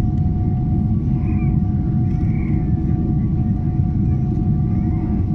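Cabin noise of a Boeing 777-300ER climbing out after takeoff: its GE90-115B engines give a steady, heavy rumble with a thin steady whine over it, heard from inside the cabin.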